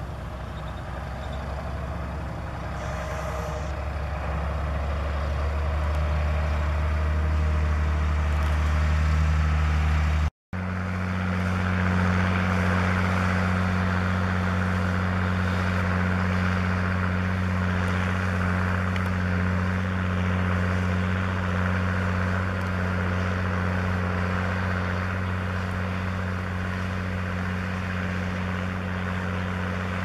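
Tractor diesel engine running steadily under load while pulling a plough. It breaks off briefly about a third of the way in, then the drone carries on at a slightly higher pitch.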